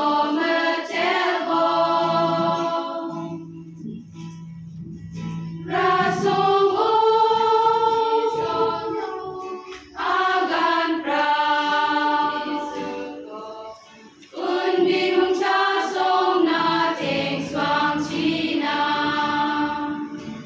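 Women's choir singing a hymn together, in phrases of a few seconds with short breaks for breath, the longest gap about four seconds in.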